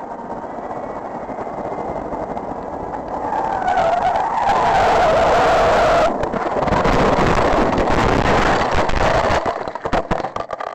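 A car skidding with its tyres squealing. The wavering squeal swells loud about four seconds in and stays loud, then breaks up into choppy noise and cuts off suddenly.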